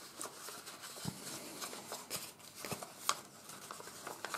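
Faint rustling and crinkling of folded office paper being opened out by hand into an origami model, with scattered small crackles, the sharpest about three seconds in.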